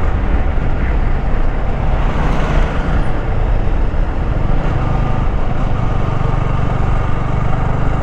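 Motorcycle engine running steadily while riding, with wind rushing over the microphone; the engine hum strengthens a little about halfway through.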